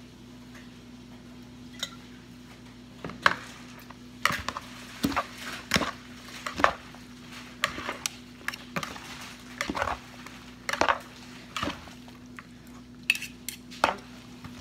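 Metal spoon and chopsticks tossing salad in a plastic mixing bowl: irregular clacks and knocks against the bowl, starting about three seconds in. A steady low hum runs underneath.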